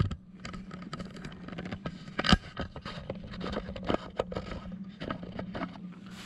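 A dog eating dry kibble from a ceramic bowl: a rapid, irregular run of crunches and clicks of food against the bowl, with one louder clack about two seconds in.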